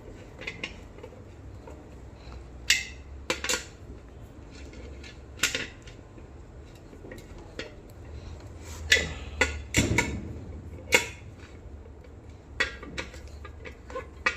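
Irregular metal clinks and knocks of hand tools and parts being handled during a water heater repair, with a busier cluster of knocks past the middle, over a low steady hum.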